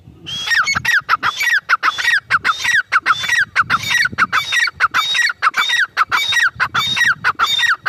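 Grey francolin calling loudly: a rapid, repeated harsh phrase, each starting with a high note and dropping in quick steps, repeated over and over without a break.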